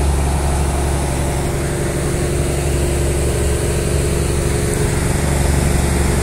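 The ferry's small MWM diesel engine, which pulls the river ferry, running steadily with a constant low hum.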